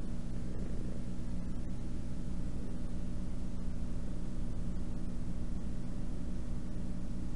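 Domestic cat purring close to the microphone as it nuzzles a person's face: a steady, even low rumble.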